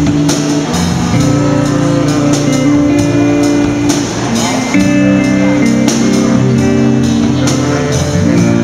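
Amateur rock band playing live: electric guitars through amplifiers, bass, drum kit and saxophone in a dense, loud wall of held notes with a steady drum beat.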